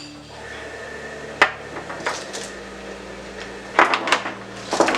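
Metal hand tools, wrenches and sockets, knocking and clinking as they are handled, with one sharp knock about a second and a half in and a cluster of clanks near the end, over a steady low hum.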